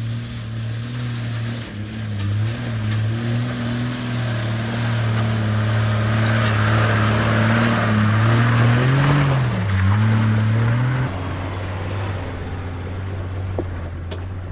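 Four-wheel-drive engine running at low revs as it crawls over rocks, with a rushing tyre-and-gravel noise that builds to its loudest in the middle. The engine note wobbles briefly, then drops to a quieter, steady run about eleven seconds in.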